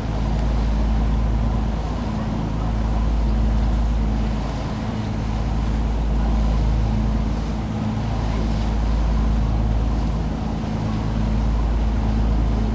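Tour boat's engine running steadily: a continuous low drone over a deep rumble, at an even pace with no changes.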